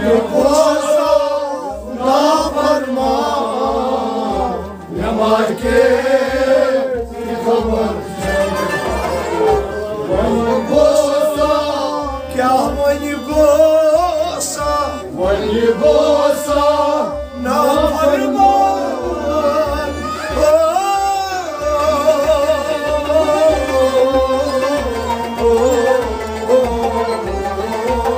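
A man singing a Kashmiri folk song to his own harmonium accompaniment, over a steady low beat about twice a second.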